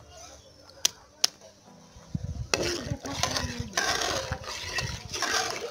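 Metal ladle stirring bael (wood apple) pulp and water in an aluminium bowl, scraping and sloshing in a series of strokes from about two and a half seconds in. Two sharp clicks come about a second in.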